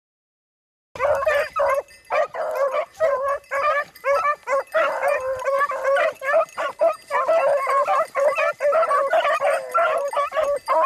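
A pack of beagles baying on a rabbit's scent, many voices overlapping without a break. The baying starts suddenly about a second in, after silence.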